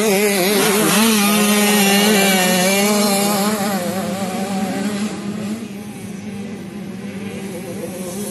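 A 65cc two-stroke motocross minibike rides past close by at high revs, its engine note wavering with the throttle. It fades after about three and a half seconds, leaving a fainter bike engine in the distance.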